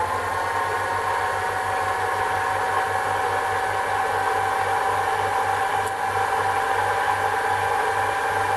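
Sherline mini metal lathe's motor and belt-driven spindle running up to speed on the low speed range: a steady whine whose pitch rises a little at first and then holds as the spindle settles at about 1440 rpm, well above the 1000 rpm quoted on its plate. Under it a low hum pulses a few times a second.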